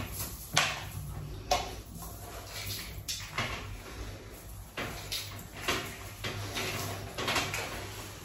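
A run of short, sharp hiccups, one about every second or two.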